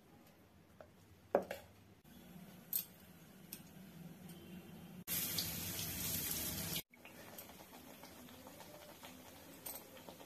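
Battered vegetable slices frying in hot oil in an iron kadai: a steady sizzle, loud for a couple of seconds in the middle and cutting off abruptly, then going on more quietly. A sharp knock about a second and a half in, before the frying.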